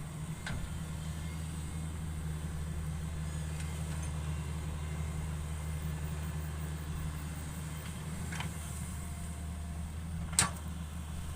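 Hitachi 110 hydraulic excavator's diesel engine running steadily. A couple of light ticks come early and late, and there is one sharp knock near the end, the loudest sound.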